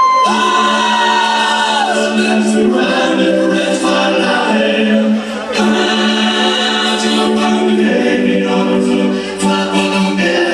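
Live music with sustained, choir-like chords and a high held note that slides down and ends about two seconds in.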